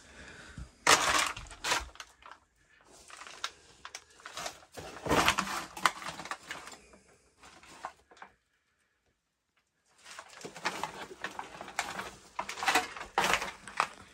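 Trash and debris crunching and rustling underfoot in irregular bursts, cutting out completely for about a second and a half past the middle.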